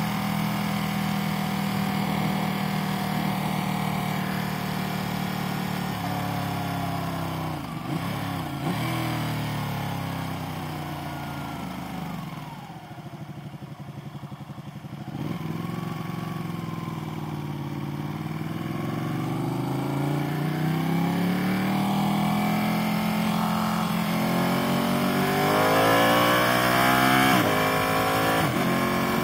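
Motorcycle engine heard from the rider's helmet on the move. The engine note falls as it slows about a quarter of the way in and drops low for a couple of seconds near the middle. It then rises as it accelerates away, with gear changes near the end, over steady wind and road noise.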